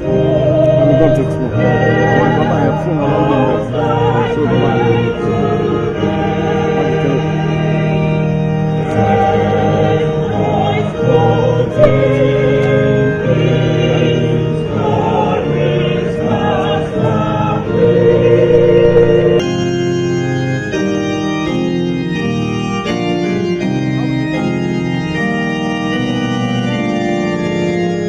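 A church choir singing a hymn, accompanied by an electronic keyboard playing organ tones. About two-thirds of the way through the singing stops and the organ chords play on alone.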